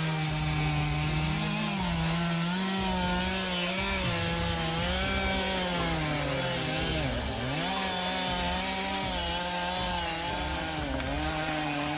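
Chainsaw running at high revs while cutting wood, its engine pitch wavering as the chain bites and eases, with a deep sag about seven seconds in before it picks back up.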